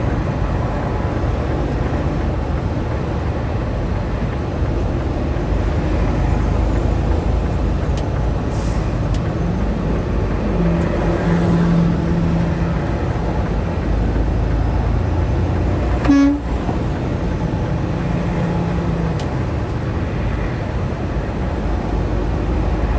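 Engine and road noise of a semi-truck, a steady low rumble. A steady tone holds for several seconds in the middle, and about 16 seconds in there is one short, loud tonal blip, like a quick horn toot.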